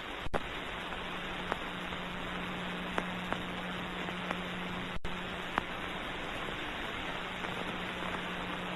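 Background noise of an old 1929 film soundtrack: steady hiss with a low hum, broken by scattered clicks and pops.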